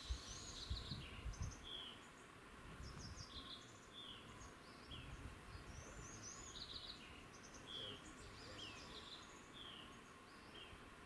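Small birds calling, faint: short high notes that slide downward, about one a second, mixed with quick higher chirps. A few low thumps come in the first two seconds.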